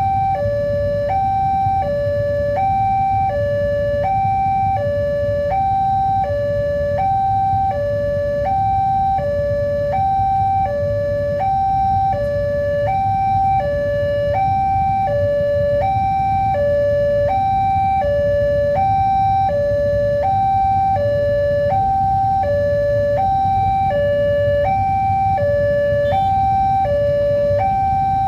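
Electronic warning alarm of a railway level crossing, a two-tone signal alternating high and low about once a second, warning that a train is approaching. A steady low rumble runs underneath.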